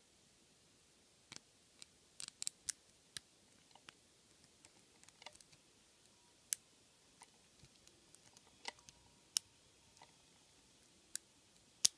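Sharp, irregularly spaced clicks of a lock pick working the serrated and spool pins of a Draper Expert 46mm padlock under tension, the pins setting and the plug dropping into a false deep set.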